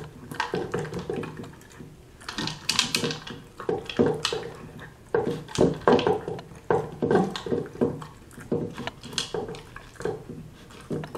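Weimaraner eating dry kibble from a plastic anti-gulping bowl: irregular crunching and clattering of kibble against the bowl, in bursts with short pauses.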